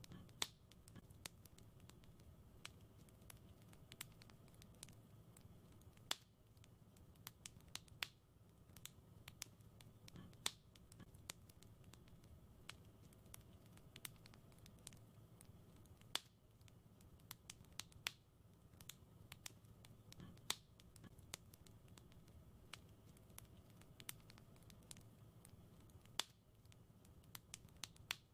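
Wood fire crackling: soft, irregular pops and snaps, a few sharper than the rest, over a faint low steady rumble of the burning fire.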